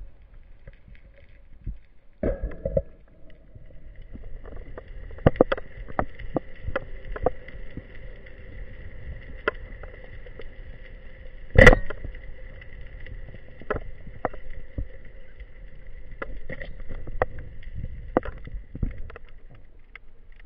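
Underwater sound picked up by the diver's camera: a steady hum of several held tones that sets in with a knock about two seconds in, with many scattered sharp clicks and one loud click about twelve seconds in.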